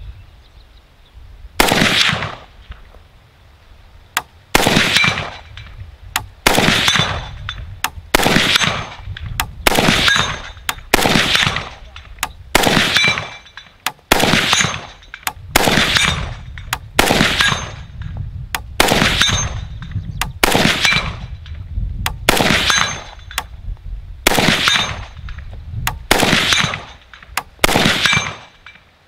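WBP Mini Jack AK pistol in 7.62x39 firing steady semi-automatic shots, one roughly every one to two seconds, each crack trailing off in a short echo. Faint metallic pings from a steel gong being hit at 100 yards sound between some shots.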